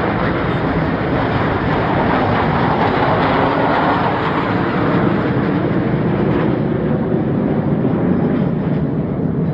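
Jet aircraft flying past: a loud, steady rush of engine noise that swells about three to four seconds in, then eases slightly.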